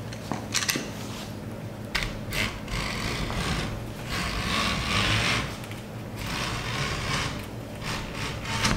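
Hook blade of a screen spline tool drawn along the frame's cutting groove, slicing through tough pet-resistant screen mesh: a rasping scrape, with a few sharp clicks in the first couple of seconds as strands give.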